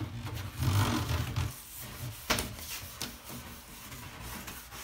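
Hand scrub brush rubbing over the shower's tile and glass door during an acid cleaning, with one sharp knock a little over two seconds in.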